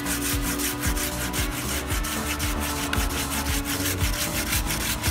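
Hand pruning saw with a wooden handle drawn back and forth through a soft moringa trunk in steady, rapid rasping strokes, cutting easily.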